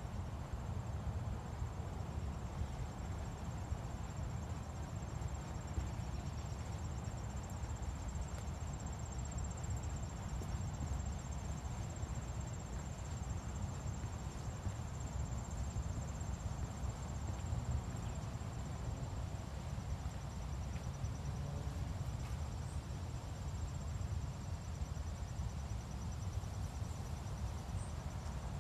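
Insects trilling in a steady, high, continuous buzz, with a second slightly lower trill joining partway through, over a steady low rumble.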